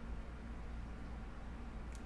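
Steady low hum and hiss of room tone, with one faint click near the end.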